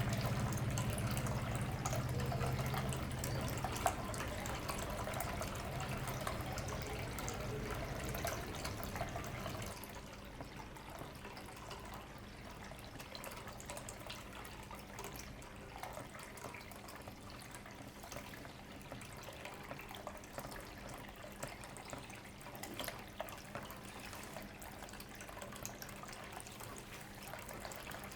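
Small indoor pitcher water fountain running: water trickling and dripping steadily into its basin, with a faint low hum underneath. The sound is louder for about the first ten seconds, then drops to a quieter trickle.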